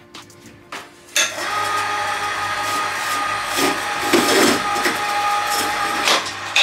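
Electric hoist motor running steadily while lowering a small garden tractor, with a steady whine over a low hum. It starts about a second in and cuts off suddenly near the end.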